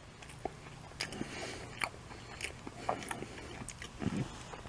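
A person chewing a mouthful of a fried chicken-and-cheese flauta, with scattered faint crunches and clicks.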